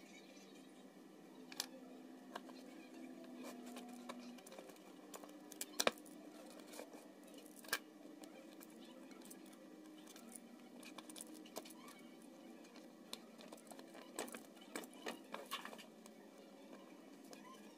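Hands working a cardboard box and paper strips: scattered light taps, rustles and clicks, with a sharper tap about six seconds in and a quick run of taps near the end.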